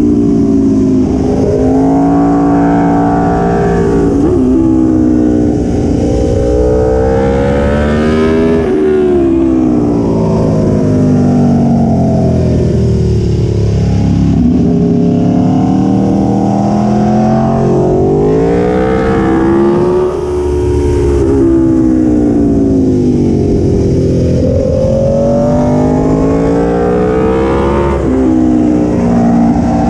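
Aprilia Tuono V4 1100 motorcycle's V4 engine revving up and backing off over and over, its pitch climbing hard and then dropping every few seconds as the bike accelerates out of corners and slows into the next ones, with one longer low stretch about halfway through.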